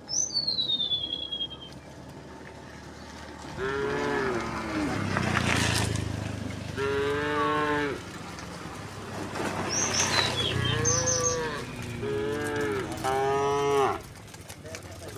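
Herd of cattle mooing: about five drawn-out moos of roughly a second each, one after another, with small birds chirping high above near the start and around the middle.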